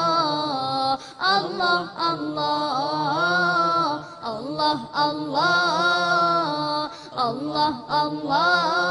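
Unaccompanied vocal chant in the style of an Islamic nasheed: long, ornamented, wavering sung notes with short breaks between phrases and no instruments.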